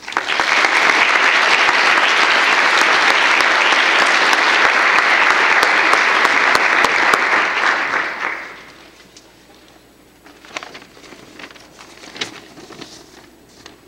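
Audience applauding, starting at once and dying away after about eight seconds, followed by a few faint knocks and shuffles.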